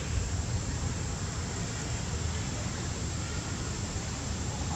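Steady outdoor background noise with a low, fluctuating rumble.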